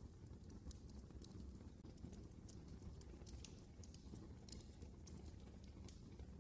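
Faint crackle of a wood fire burning in a fireplace: irregular sharp little pops and snaps over a low, steady rumble of the flames.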